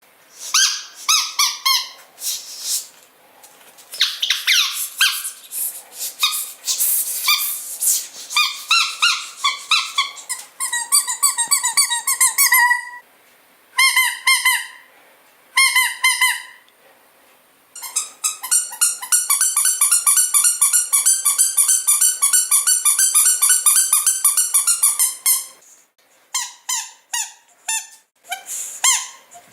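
Squeaky dog toy squeezed over and over: short pitched squeaks in bursts, with a long run of rapid squeaks in the second half broken by brief pauses.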